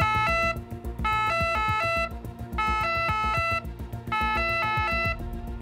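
Track-side warning system sounding its alarm: a quick run of electronic tones at several pitches, repeated about every second and a half, the signal that a train is approaching on the neighbouring track and the crew must clear the track.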